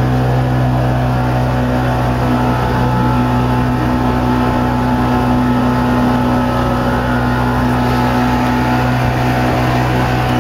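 Motor boat's engine running steadily at cruising speed, a constant low drone, with water rushing along the hull.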